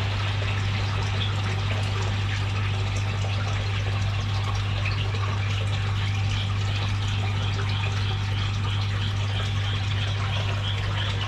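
Water trickling and splashing into a koi aquarium, steady throughout, over a strong steady low hum.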